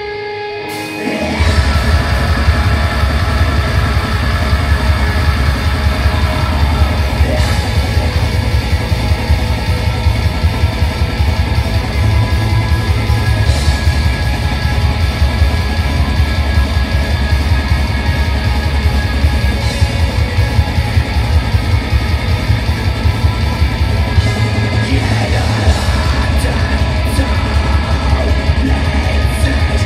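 Black metal band playing live at full volume: distorted guitars, fast drumming and yelled vocals. The full band crashes in about a second in after a quieter moment.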